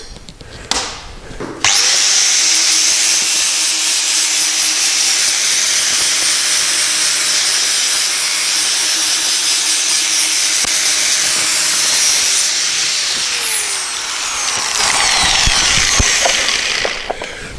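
Angle grinder starting up about two seconds in and grinding a steel exhaust pipe held in a vise, a loud, steady grinding noise with a high whine. Late on, the whine falls in pitch as the motor winds down.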